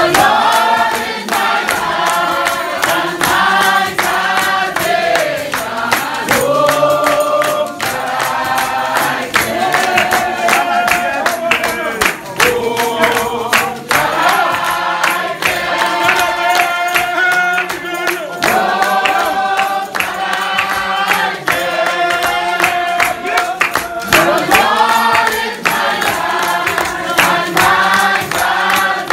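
Shouter Baptist congregation singing a hymn together in unison, with hand clapping keeping a steady beat, about two to three claps a second.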